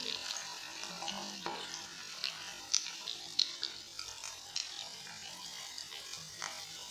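Marinated chicken pieces deep-frying in hot oil in an iron kadai: a steady sizzle with sharp crackling pops, a few of them louder about three seconds in.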